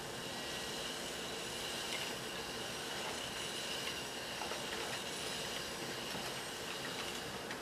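A small HOAP humanoid robot's arm servo motors running with a steady hiss and a constant high whine as it stirs a wire whisk in a plastic bowl.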